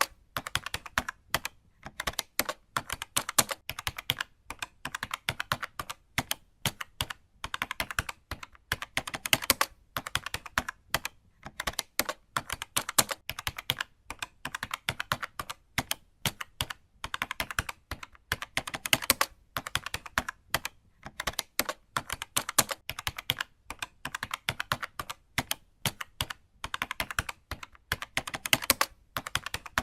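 Typing on a computer keyboard: fast runs of key clicks in bursts of a second or two, broken by short pauses.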